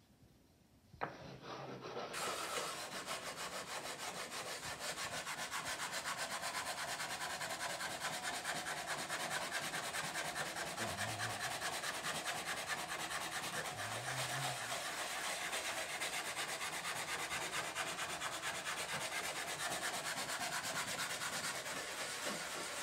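Sandpaper rubbed by hand in fast back-and-forth strokes along the raw, layered edge of a plywood panel, a steady dry rasping. A sharp knock about a second in, just before the sanding begins.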